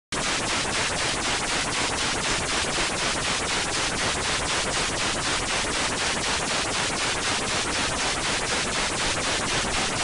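Static sound effect: a loud, steady hiss of white noise with a faint rapid crackle pulsing through it about five times a second. It starts abruptly.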